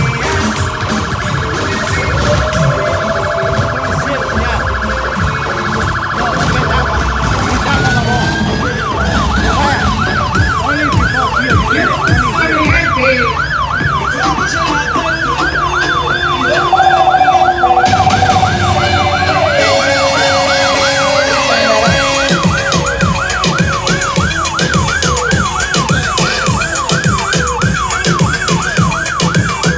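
Emergency vehicle siren: a fast warble at first, switching about eight seconds in to a rapid yelp that sweeps up and down several times a second, with a low thumping beneath.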